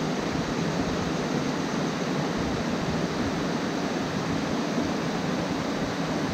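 Steady rushing of the Sok River's flowing water.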